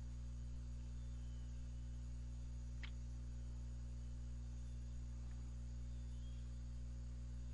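Steady low electrical hum on the recording line, with one short faint click about three seconds in.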